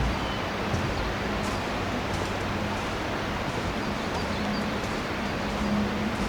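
Steady rushing of a waterfall, with a few faint, brief high ticks over it.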